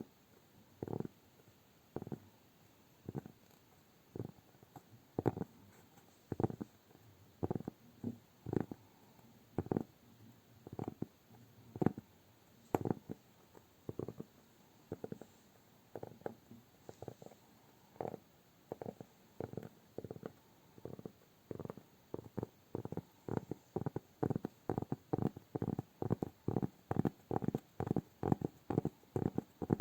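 Soft, dull tapping and pressing of hands on cork. At first there is about one stroke a second, and over the second half it quickens to two or three a second.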